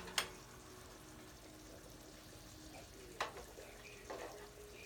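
Faint sizzling of food cooking on the stove, with three light knocks of a utensil against the pot: just after the start, about three seconds in and a second later.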